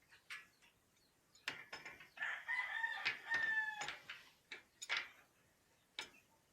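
A rooster crowing once, a single call of under two seconds beginning about two seconds in, with a few sharp clicks and knocks scattered around it.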